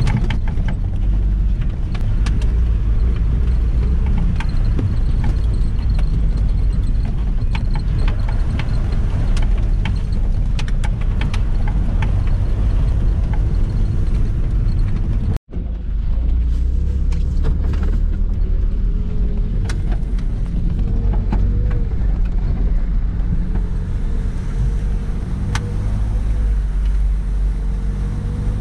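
UAZ Bukhanka van driving over a rutted, slushy dirt road, heard from inside the cab: a steady low engine and road rumble with frequent clicks and knocks from the body over the bumps. In the second half the engine note wavers up and down, and the sound cuts out for an instant about halfway through.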